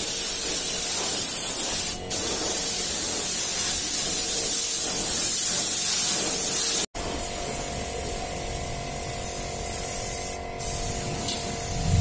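Compressed-air paint spray gun hissing steadily as it sprays paint. It cuts off abruptly about two-thirds of the way through, then comes back quieter over a steady hum.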